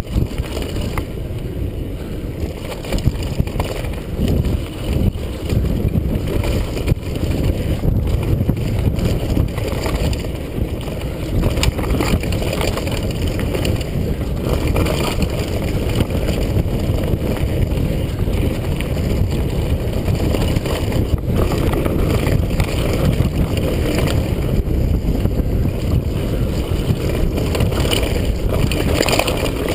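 Kona Stinky Deelux full-suspension mountain bike descending a rough dirt trail at speed: a steady low rumble of tyres and bike, scattered short knocks and rattles, and wind rushing over a helmet-mounted GoPro.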